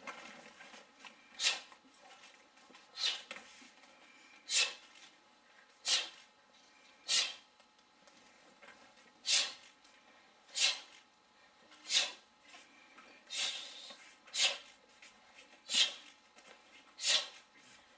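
Sharp, breathy exhalations from taekwon-do practitioners, one with each technique: about a dozen short hissing bursts, roughly one every second and a half.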